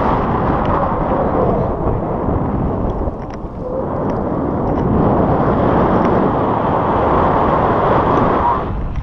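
Wind rushing and buffeting over an action camera's microphone as a tandem paraglider flies: a loud, gusting rush that dips briefly about three seconds in.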